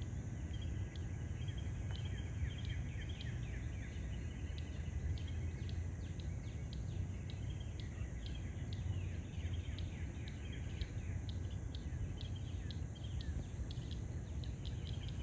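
Frogs calling from a pond: a dense chorus of short, high clicking and chirping calls repeating a few times a second, over a steady low rumble.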